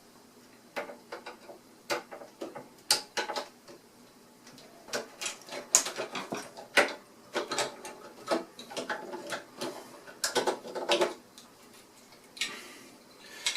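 Irregular clicks, taps and light rattles of small plastic and metal parts and tools being handled while a budget hobby sewing machine is taken apart. The clicks come in loose clusters, busiest in the middle and again later on.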